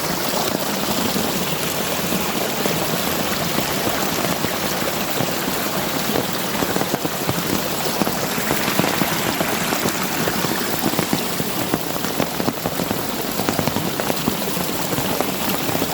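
Heavy, steady rain: a dense, even patter of countless drops hitting close by.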